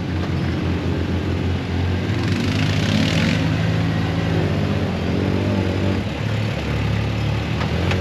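Off-road buggy engine running, its pitch rising and falling as the throttle changes, with a brief rush of noise about two to three seconds in.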